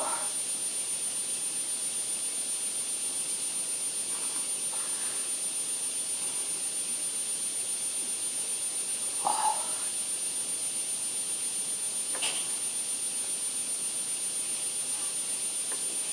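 Steady hiss with a thin, faint high-pitched whine, broken by a few short faint sounds: the clearest about nine seconds in, and a sharp click a little after twelve seconds.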